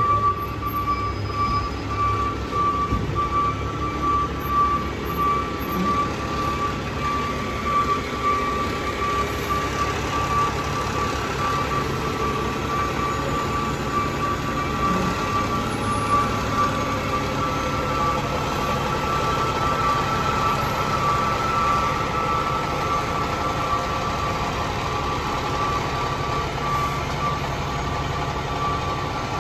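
Diesel engine of a tractor-drawn aerial ladder fire truck running as the truck maneuvers, a steady rumble with a steady high tone over it.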